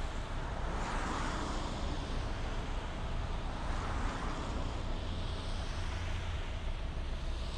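Vehicle driving on a city road: a steady low rumble of engine and tyres, with the rushing sound of passing traffic swelling about a second in and again around four seconds in.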